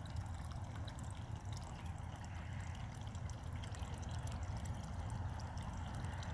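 Water pouring steadily from a pond filter's return pipe into a small pond, a continuous splashing trickle over a low steady rumble.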